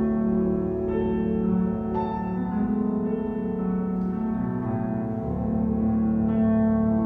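Alto saxophone playing a melody of long held notes over piano chords, in a classical sax-and-piano duo.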